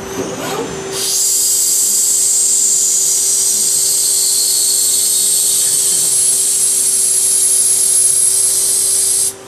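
CNC lathe polygon-turning a brass part: the spindle and rotating polygon cutter run with a loud, steady, high-pitched whine and hiss of cutting over a constant machine hum. The cutting starts about a second in and cuts off sharply near the end.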